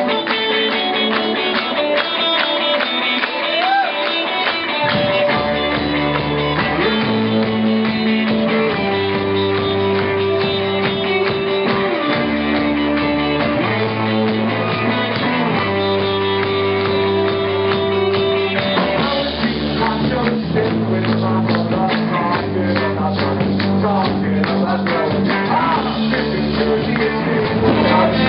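A live rock band playing electric guitars, bass guitar and keyboard, with voices singing. Low bass notes come in about four and a half seconds in and carry a steady bass line from then on.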